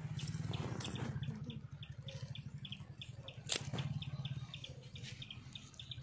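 Low, steady hum of running machinery with a quick, even series of high chirps, about four or five a second, and one sharp click about halfway through.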